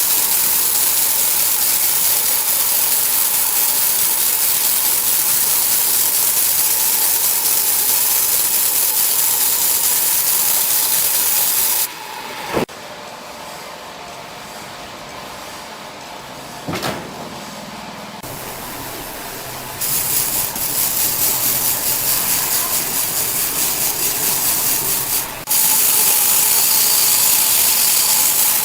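Sawmill machinery running: a loud, steady hiss with a faint steady whine, dropping abruptly to a quieter machine sound partway through, with two sharp knocks, then loud again near the end.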